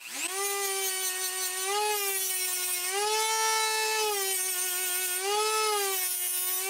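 Dremel rotary tool spinning up and sanding down the tabs inside a chrome- or nickel-plated metal clamp: a steady high whine whose pitch rises a little three times. It winds down with a falling whine near the end.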